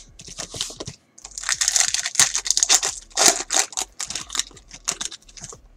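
Trading-card pack wrapper crinkling and tearing as it is ripped open and the cards are slid out, a run of quick crackles with a short pause about a second in.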